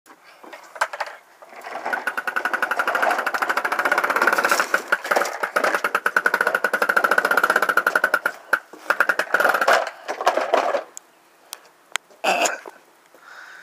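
Plastic toy dump truck pushed across wooden deck boards, its wheels rattling in a fast, steady clatter that stops a few seconds before the end, followed by a few separate knocks.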